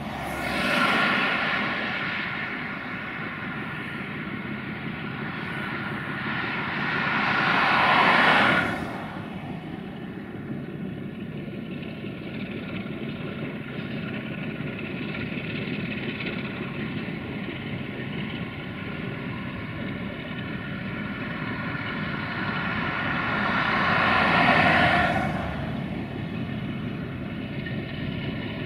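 ND2 (LDE2100) diesel-electric locomotive's Sulzer 12-cylinder diesel engine running under load as it hauls a freight train, a steady loud drone with a clear engine pitch. The sound swells louder three times: about a second in, around eight seconds, and near the end.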